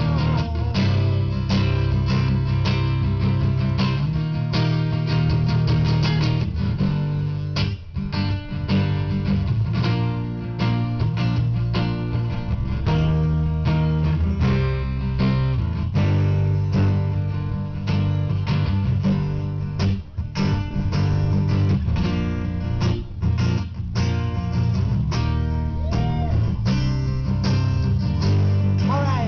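Live band playing an instrumental break in a blues-rock song, with guitars strummed and picked throughout.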